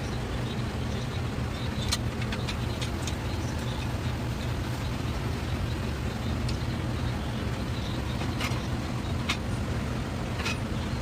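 A steady low mechanical hum, with scattered light clicks and taps over it.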